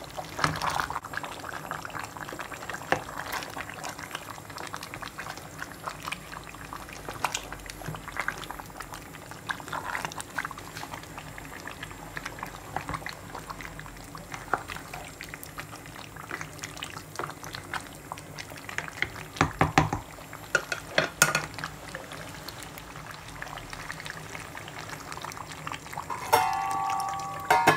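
Spiced meat curry of bone-in meat and potatoes sizzling and bubbling in a stainless steel pot while it is stirred, with a utensil clicking and scraping against the pot. A few louder clicks come about two-thirds through, and a brief tone sounds near the end.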